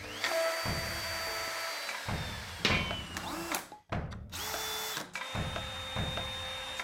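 Electric power tools running: a plunge router cutting wood and cordless drills spinning, their motor whines rising and slowly falling. The sound is cut into short edited pieces, with a brief drop a little past halfway.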